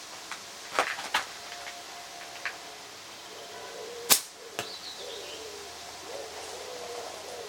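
Flatband slingshot shooting clay ammo: sharp snaps and clicks of the bands and shots, the loudest a single crack about four seconds in followed by a smaller click about half a second later. A dove coos in the background through the second half.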